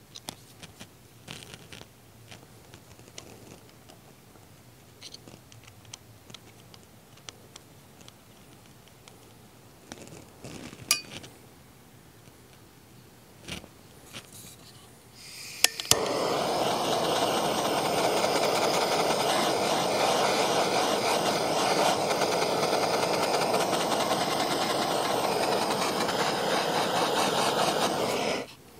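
Handheld propane torch lit with a click about halfway through, then burning with a steady, loud hiss for about thirteen seconds before it is shut off near the end; it is heating heat-shrink tubing over an antenna wire. Before it there are a few light clicks and taps of handling.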